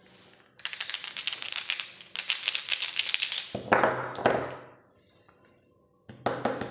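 Small plastic paint jars with screw lids clattering together in the hands, a rapid run of clicks and rattles, then set down on a table with a few louder knocks. Another short clatter comes near the end as a jar is moved.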